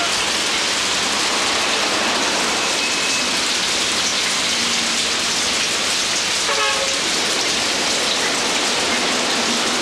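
Heavy rain pouring onto pavement, a steady dense hiss, with a brief pitched sound about two-thirds of the way through.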